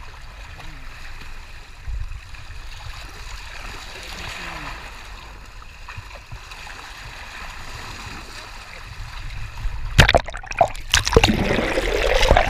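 Seawater sloshing and gurgling around a bluefin tuna held alongside a boat, then loud splashing and bubbling from about ten seconds in as the water washes over the microphone. The sound cuts off suddenly at the end.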